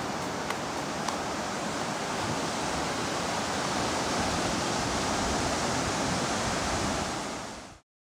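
Steady wash of ocean surf and wind, swelling a little midway, with two faint ticks about half a second and a second in; it fades out to silence near the end.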